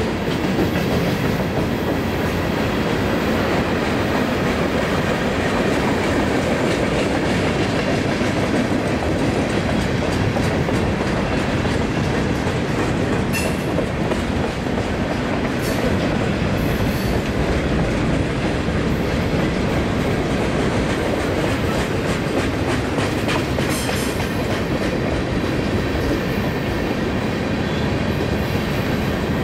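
Freight cars of a long mixed freight train rolling past: a steady rumble of steel wheels on rail, with a few sharp clicks midway and about two-thirds through.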